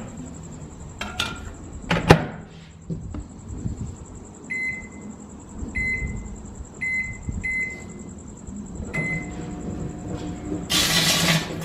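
Microwave oven being set going: a couple of sharp clunks, then five short keypad beeps, after which the oven starts running with a steady hum, joined near the end by a loud rushing noise.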